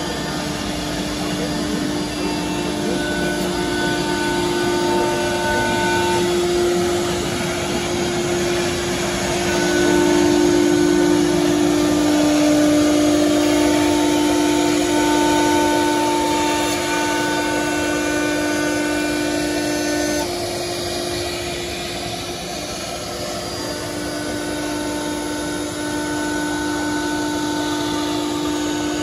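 CNC router spindle running and cutting into a melamine-faced panel, with the dust-extraction hose drawing air through the brush shoe. It makes a continuous whine over a rushing hiss, and the whine steps to a different pitch a few times.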